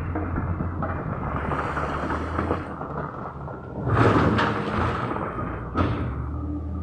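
Backhoe's diesel engine running under a rough clatter of digging, with a loud rumbling crash about four seconds in and a sharp bang just before six seconds.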